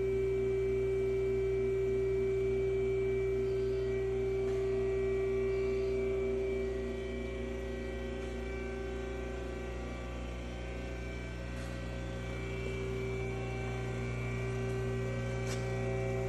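Steady electrical hum with a high held tone over it from a powered-up Haas ST-20 CNC lathe standing idle. The tone fades for a few seconds midway and then comes back.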